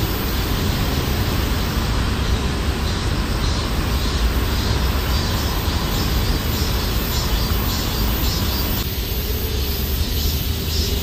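Steady outdoor background noise with a deep rumble. Its tone shifts about nine seconds in.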